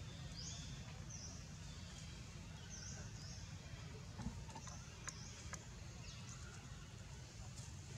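Short high-pitched chirping calls, repeated several times at irregular intervals, over a steady low rumble of outdoor background noise, with a few soft clicks in the second half.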